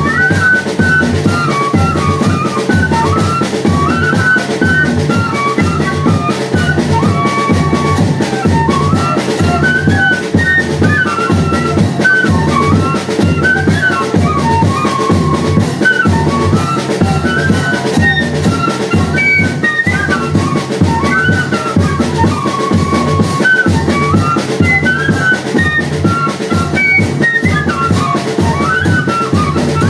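Banda de pífano playing: a cane fife melody over a steady beat from zabumba bass drum and snare drum.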